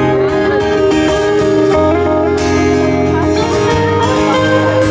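Live rock band playing a song's instrumental intro: guitars over a steady bass, with sustained chords and a guitar melody. It is heard through the venue's PA from within the audience.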